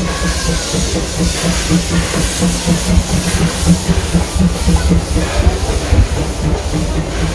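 Steam locomotive 'Eureka' (No. 4) of the Disneyland Railroad pulling into the station, hissing steam over the rumble and clatter of its wheels, with its coaches then rolling past.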